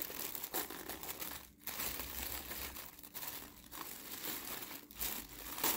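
Package wrapping crinkling and rustling in irregular bursts as a child unwraps it by hand, loudest near the end.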